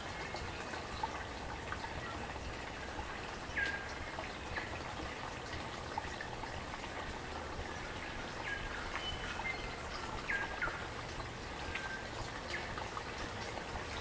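Small forest stream trickling and gurgling steadily, with scattered short high notes and quick rising sweeps.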